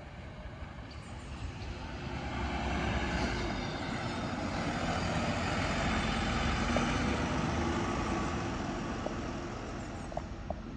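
Mercedes-Benz Citaro city bus driving past close by. Its engine and tyre noise builds over the first few seconds, stays loud through the middle as the bus goes by, then slowly fades.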